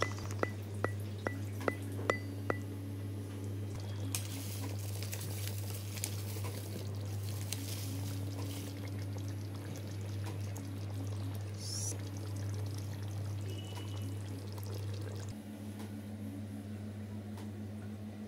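Creamy chicken and broccoli sauce simmering in a pan, soft bubbling over a steady low hum. In the first couple of seconds a quick run of chime-like ticks fades away.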